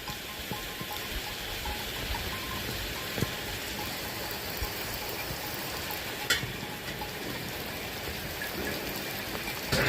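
Steady rain falling, an even hiss with a few sharp drip-like knocks about three seconds in, about six seconds in and near the end.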